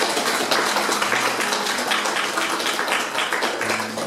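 Audience applauding, a dense spread of clapping that dies down near the end.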